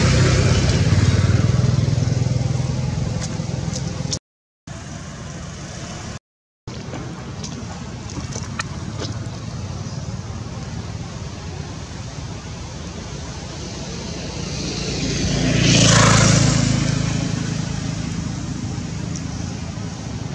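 A motorcycle passes close by, its engine loud at first and fading away over a few seconds. The sound cuts out completely twice, briefly. Later, another vehicle approaches, passes about sixteen seconds in and fades off.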